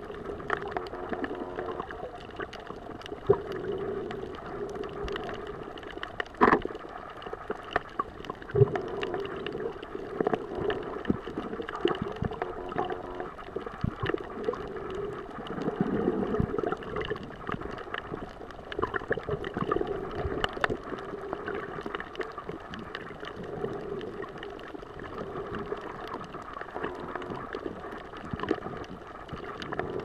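Muffled underwater sound from a camera held below the surface over a reef: a steady low rush of water with scattered sharp clicks and pops.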